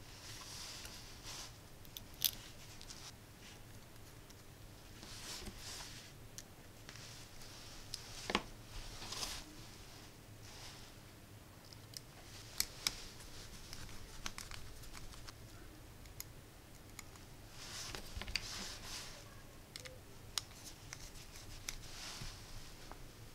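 Faint handling of small metal hardware: pillars and small screws being threaded together by hand and with a mini screwdriver. Scattered sharp clicks and taps, with short bouts of soft scraping.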